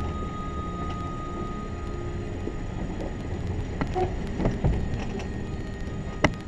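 Vehicle driving: a steady low rumble with a few sharp knocks and rattles around four seconds in and again near the end.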